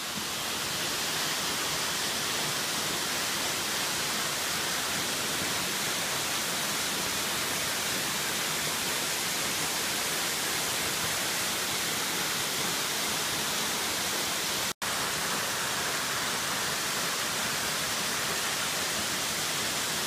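A waterfall's falling water rushing in a loud, steady roar. It cuts out for an instant about three-quarters of the way through.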